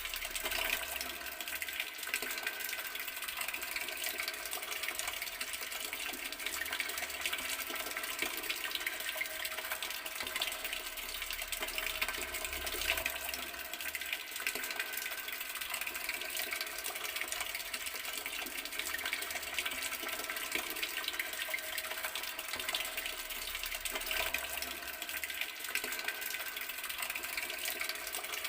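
Outdoor garden water tap running, a steady, unbroken stream of water splashing.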